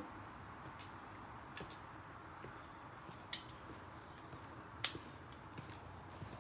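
Faint steady outdoor hiss with a few sharp, scattered clicks, the loudest about three and a half and five seconds in: footsteps in work boots on a concrete driveway.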